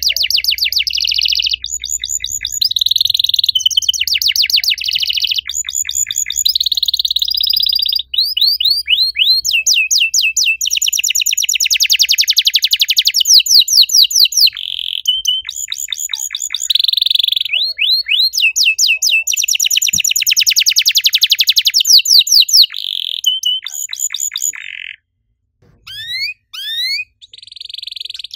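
Domestic canary singing a long, fast song of rapid, high-pitched trills and rolls, one phrase after another. It breaks off briefly near the end, then gives a few rising chirps.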